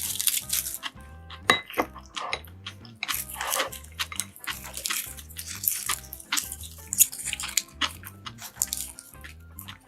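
Background music with a steady low beat, over many close, sharp clicks and knocks and short hissing noises.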